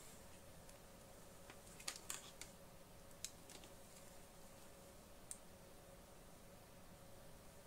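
A few faint, sharp clicks of multiclick handling: multimeter probe tips and leads being picked up and touched against a power adapter's metal barrel plug, over a faint steady hum and near-silent room tone.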